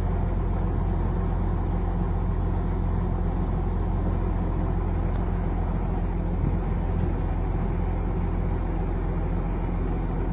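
A steady low hum of an idling engine, unchanging throughout.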